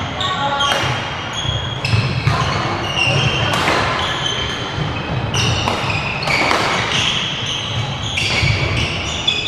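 Badminton play echoing in a large sports hall: sharp racket hits on shuttlecocks at irregular intervals, mixed with short high squeaks of shoes on the wooden court floor.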